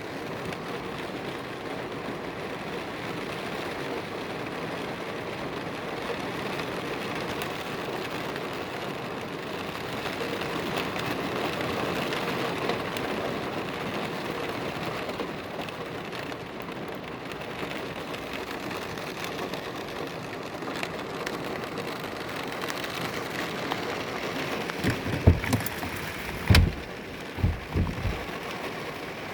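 Rain falling steadily in a thunderstorm, with a few short low thumps near the end.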